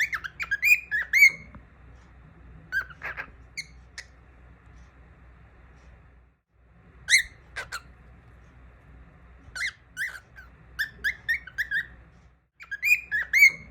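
Young cockatiel singing: quick runs of short chirps and whistled notes, in bursts of about a second with pauses of a few seconds between them.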